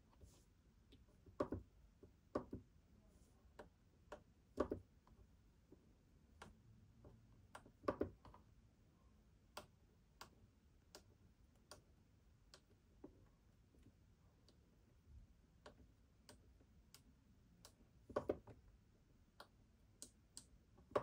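Near silence with faint ticking about twice a second and several louder, irregular sharp clicks.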